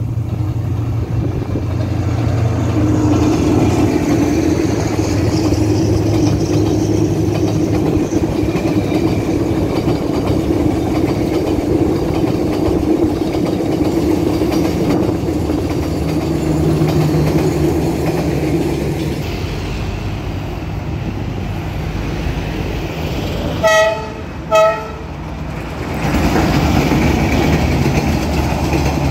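A train rumbling past on its rails with a steady low hum. Near the end it gives two short horn toots, less than a second apart, and the rolling noise picks up again just after.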